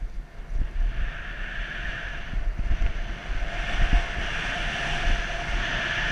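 Skis sliding over groomed snow, a steady hiss that grows louder about three and a half seconds in, with wind buffeting the microphone in low, irregular thumps.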